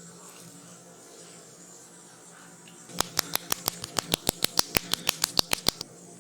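Hands tapping and slapping the head in a percussive head massage: a fast, even run of about twenty sharp slaps, about seven a second, starting about three seconds in and lasting about three seconds.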